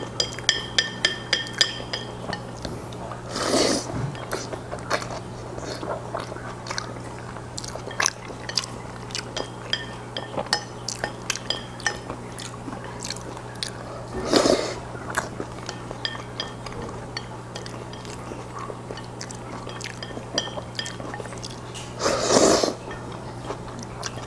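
Close-miked wet chewing and mouth clicks of a man eating black bean noodles (jjajangmyeon), with three longer noodle slurps spread through, over a steady low electrical hum. A few light ringing clinks, like utensils on the bowl, come near the start.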